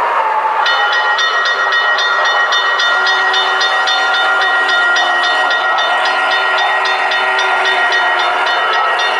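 Model railroad locomotive sounds: a bright, ringing high pattern repeated about four times a second over steady tones, starting just under a second in and carrying on steadily.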